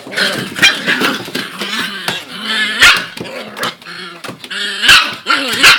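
Puppies yipping and barking in play, a run of short high calls that bend in pitch, with the loudest sharp yips about three seconds and five seconds in.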